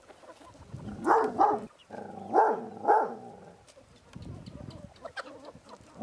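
Chickens calling: two pairs of short, loud clucking calls, about a second and about two and a half seconds in, followed by faint scattered clicks.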